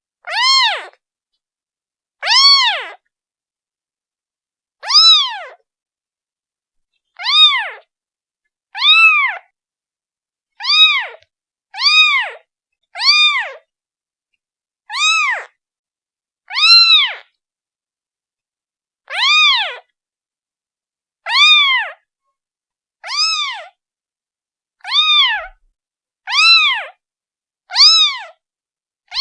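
Newborn kitten, a day old, meowing over and over to call its mother. The short, high-pitched cries come about one every two seconds, each rising and then falling in pitch.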